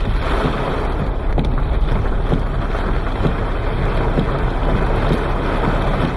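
Torrential rain pouring down: a dense, steady hiss dotted with the ticks of drops, with wind rumbling on the microphone.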